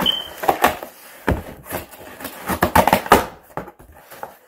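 Scissors cutting open a cardboard box: an irregular run of sharp snips and crunches of cardboard, with the box knocking and scraping as it is worked.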